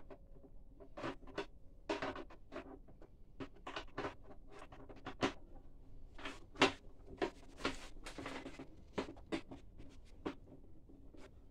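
Metal wire grille door being fitted into the lock holes of a plastic pet carrier: irregular clicks, taps and rattles of wire against plastic, with longer rattling stretches about two seconds in and again near eight seconds.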